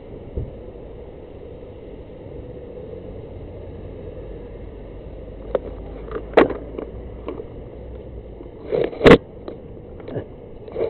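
Handling knocks on an action camera over a steady low hum: a thump near the start, then a run of sharp knocks and bumps from about five and a half seconds on, the loudest about nine seconds in.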